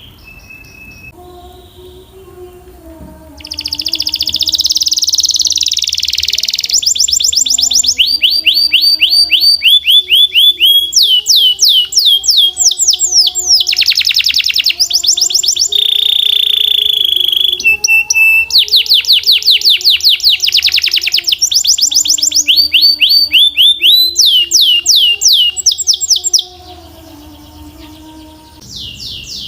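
Canary singing: a long song of rapid trills, each a fast run of repeated downward-sweeping notes, changing from phrase to phrase. It starts a few seconds in and stops a few seconds before the end.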